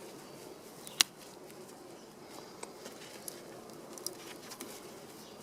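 Faint crumbling and pattering of garden soil as hands dig through a potato bed, with scattered small ticks and one sharp click about a second in.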